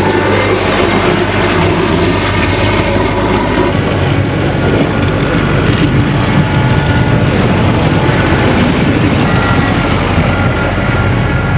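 New Holland TC35DA tractor's diesel engine running steadily at working speed, heard close up.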